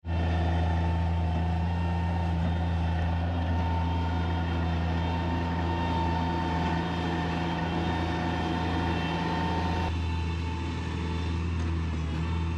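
A heavy engine running steadily with a deep, even hum, starting abruptly; its tone thins a little about ten seconds in.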